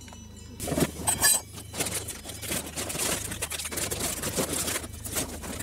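Plastic bag of porridge crinkling and rustling as it is handled and opened, with many small sharp clicks; it starts about half a second in.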